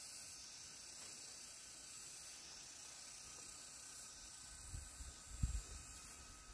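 Faint, steady high hiss of outdoor field ambience, with a few low thuds about five seconds in.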